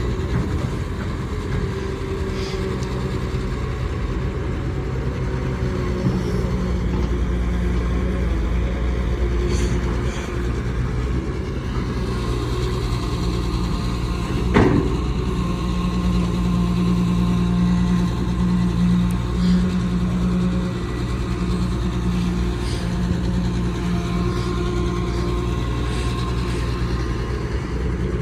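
Caterpillar 320D excavator's diesel engine running steadily as it works, with one sharp clank about halfway through.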